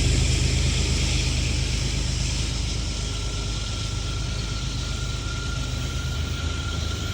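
Union Pacific freight train passing: the low rumble of the diesel locomotives fades over the first few seconds, leaving the steady rolling noise of the freight cars. About three seconds in, a thin steady high tone comes in over it.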